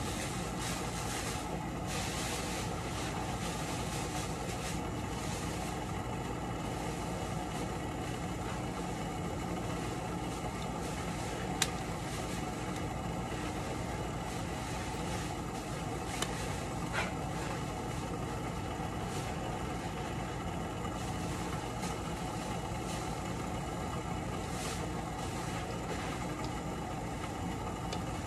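A steady machine hum with a few faint clicks, one about twelve seconds in and two more around sixteen to seventeen seconds.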